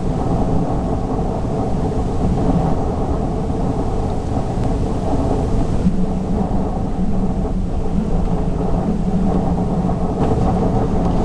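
Strong wind buffeting the microphone: a loud, steady low rumble. About six seconds in, a steady low hum joins it.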